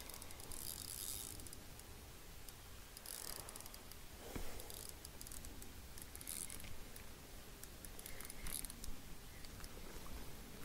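Fishing reel cranked in short spurts, a high rasping whir heard four times, as a hooked bass is reeled in to the boat. There is a single knock about four seconds in.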